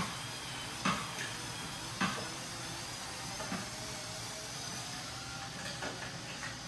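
Steady hissing noise with four short, sharp knocks in the first half, typical of parts and tools being handled during a vehicle teardown.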